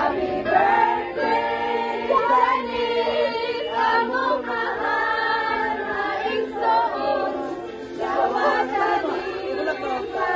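A group of people singing a birthday serenade together in chorus, several voices over steady held notes.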